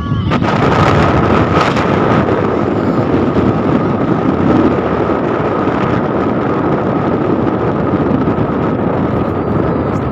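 A moving vehicle's engine and road noise, steady throughout, with wind buffeting the microphone.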